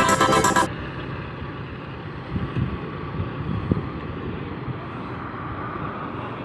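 Electronic background music that cuts off abruptly under a second in, leaving steady outdoor noise: a low rumble with wind buffeting the microphone.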